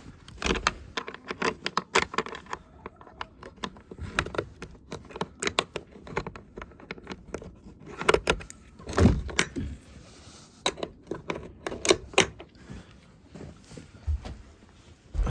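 Irregular clicking, rattling and knocking of a chicken coop's latch and door being handled to get at the eggs.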